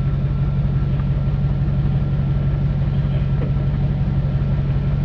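A 1997 Land Rover Discovery Series I engine idling steadily with a low, even drone.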